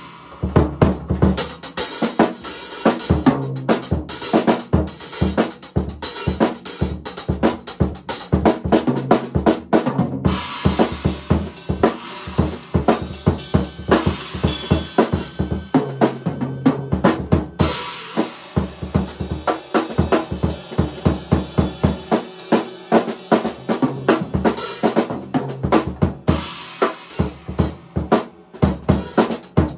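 Drum kit played continuously in a quick, steady rhythm of snare drum, bass drum and cymbal strikes.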